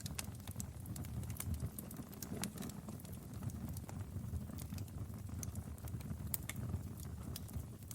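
Wood fire in a fireplace crackling: irregular sharp pops and snaps over a low, steady rumble of the flames.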